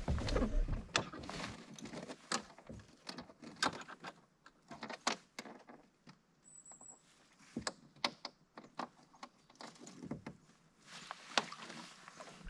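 A hooked brook trout splashing at the surface beside a canoe: a run of irregular sharp splashes and knocks, the heaviest in the first second.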